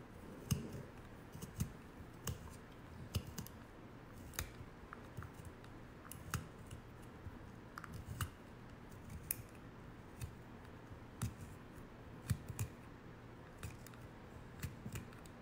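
Handheld cosmetic pencil sharpener being worked on an eyebrow pencil: a string of quiet, irregular clicks and scrapes, about one or two a second.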